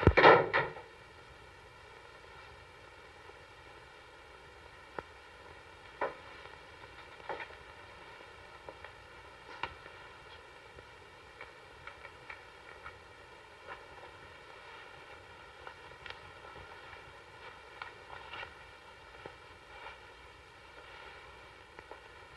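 A man's scream that breaks off within the first second. After it comes a low hiss with scattered faint clicks and knocks.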